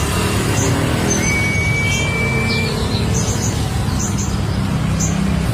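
Steady low mechanical rumble, like a vehicle engine, with faint short high chirps of a brown-throated sunbird over it and a thin whistled note a little after a second in.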